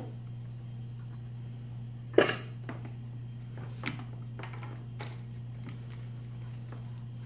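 Tools being handled on a workbench while setting up to solder. There is one sharp knock about two seconds in, then a few lighter clicks and taps, over a steady low hum.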